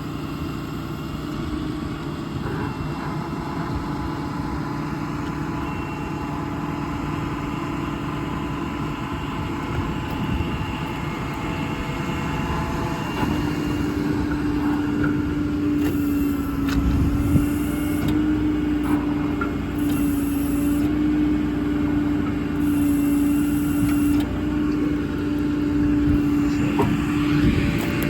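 A Ram 5500's 6.7 Cummins diesel engine running steadily. About halfway through, a steady hum grows much stronger, and a few knocks come in the second half.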